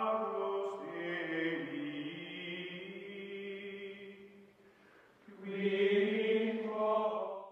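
Outro music of long held notes, dying away about four and a half seconds in, then swelling again before it stops.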